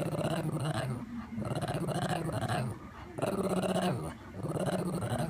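A dog's 'talking' vocalizations: four drawn-out, growly moans of about a second each, rising and falling in a speech-like rhythm, the dog's imitation of a spoken phrase on cue.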